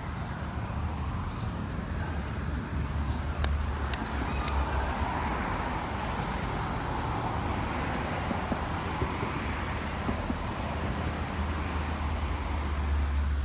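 Steady outdoor rumble like distant road traffic, swelling a little midway, with a few sharp clicks about three and a half and four seconds in.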